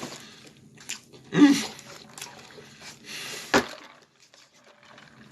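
A man's wordless vocal sounds of enjoyment while eating: a short voiced exclamation about a second and a half in, then a long breathy exhale like a 'whew' ending in a click, with a few small mouth clicks.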